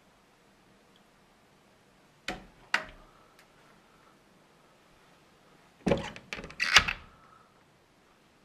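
Closet door being handled, making sharp knocks and clacks. There are two knocks about half a second apart, then about three seconds later a quick cluster of five or so, the last the loudest, each leaving a faint ringing.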